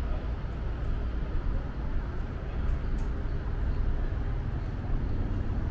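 Outdoor ambience: a steady low rumble, with a couple of faint clicks about halfway through.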